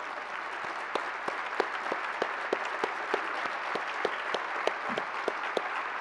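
Audience applauding steadily, with one person's loud, close claps standing out at about three a second.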